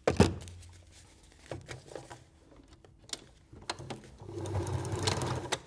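Janome domestic sewing machine stitching through oilcloth. It starts about three and a half seconds in, runs louder for about a second and a half, and stops just before the end; the oilcloth is sticky and grabby and does not want to feed through under the foot. A sharp knock comes right at the start, followed by a few light clicks of handling.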